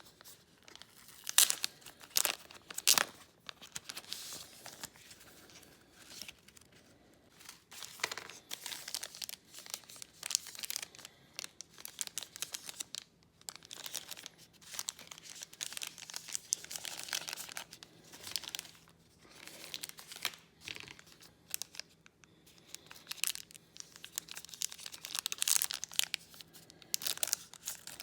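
Close crinkling and tearing in irregular bursts, with a few sharp crackles in the first three seconds.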